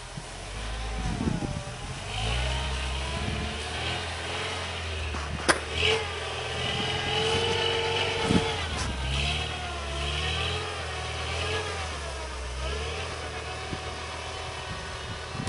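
Toyota 4x4's engine revving up and down under load as it is driven up a snowy slope. A sharp knock about five and a half seconds in, and a smaller one a few seconds later.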